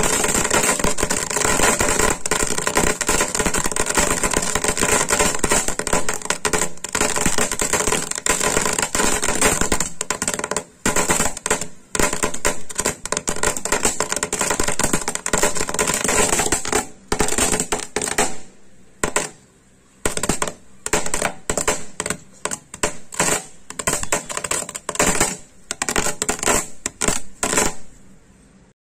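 Ground firework spraying sparks, with a loud steady hiss and crackle. In the last ten seconds it sputters in short crackling spurts with pauses as it burns out.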